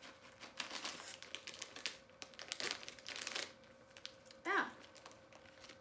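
Plastic snack packet crinkling as it is handled and torn open, in dense rustling spells through the first three and a half seconds. A brief vocal sound about four and a half seconds in.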